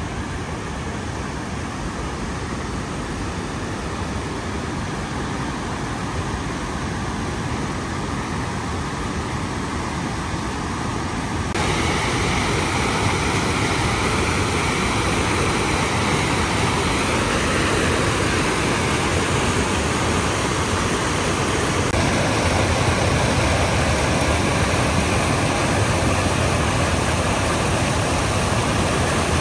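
Rushing water, a steady even noise that gets suddenly louder about twelve seconds in.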